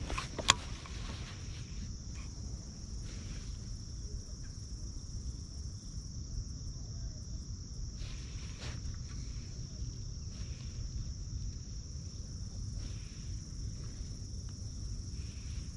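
Steady high-pitched insect chorus, with one sharp click about half a second in.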